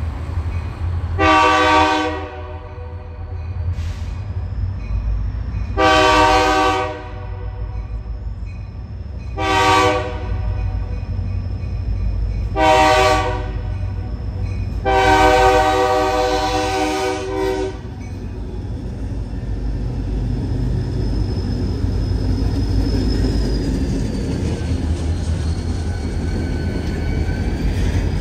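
EMD SD40-2 diesel locomotives approaching and passing close, the lead unit's air horn sounding five blasts, the last the longest, ending about 18 seconds in. After that the locomotives' diesel engines and wheels on the rails rumble loudly as they go by.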